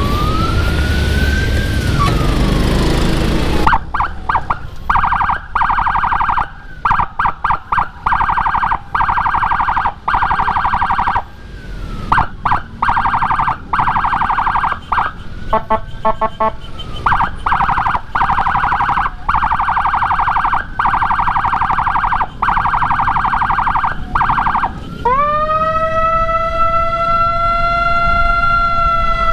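Electronic siren on an escort motorcycle, a Whelen HHS Lite siren module through a Senken YD100i horn speaker, switching tones: a wail gliding up and down at first, then about four seconds in a fast warbling pulse tone that is cut off and restarted many times, then near the end a slow wail sweeping up again.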